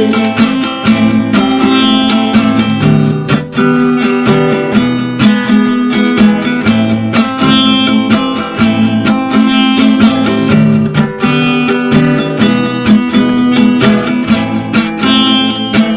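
Instrumental music break led by acoustic guitar, plucked and strummed over a steady bass line.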